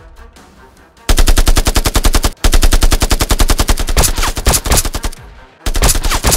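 Machine-gun sound effect: rapid automatic fire in three long bursts, starting about a second in.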